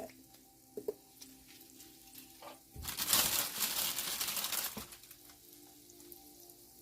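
Food sizzling on a hot grill, with a sudden loud burst of sizzling about three seconds in that lasts about two seconds before dropping back to a faint sizzle.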